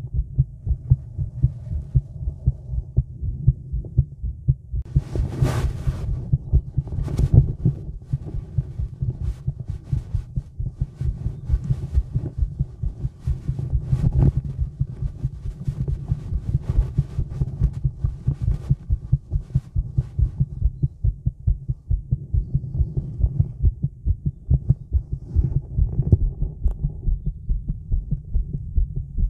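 A woman's heartbeat heard close up: steady low thumps in quick, even succession. There are a few louder scraping noises about five to seven seconds in.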